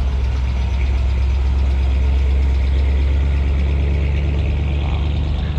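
A car engine idling close by: a steady, deep rumble.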